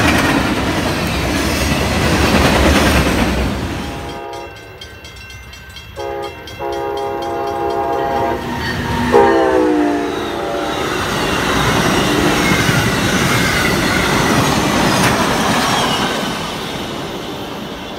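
A freight train rolling past at speed, its wheels rumbling on the rails. After a cut, an approaching locomotive sounds its multi-chime air horn for the grade crossing in several blasts, one short and then longer ones. The horn's pitch drops as the locomotive passes about nine seconds in, and the cars then roll by close, the rumble fading near the end.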